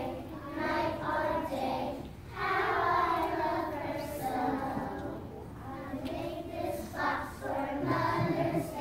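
A group of young children singing together in long held phrases.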